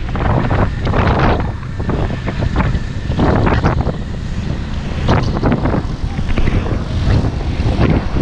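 Wind buffeting the microphone of a camera riding on a moving motorcycle, surging in irregular gusts, over the low running of the motorcycle's engine.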